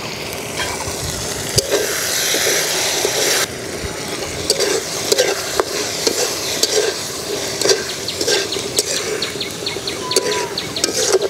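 Onion-tomato curry masala sizzling and bubbling in an aluminium karahi, then from about three and a half seconds in a spatula stirring and scraping against the pan in quick repeated strokes, about two to three a second.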